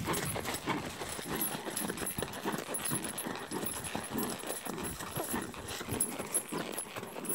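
Horse walking up a steep dirt and grass slope, hooves thudding in an uneven rhythm with grass brushing against its legs.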